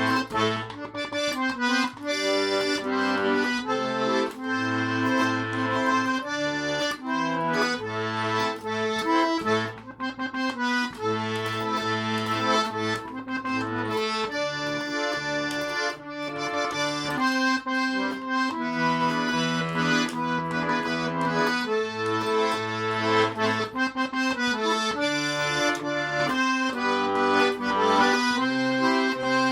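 Garmon, the Russian button accordion, playing a song tune: a melody over held chords and bass notes that runs on without a break.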